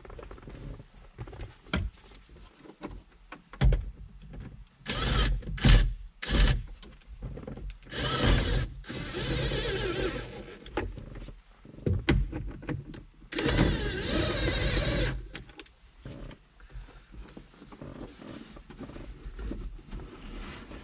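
A cordless drill-driver runs twice for about two seconds each, driving in the bolts of a truck's roof clearance light housing. Short knocks and clicks of handling come before and between the runs.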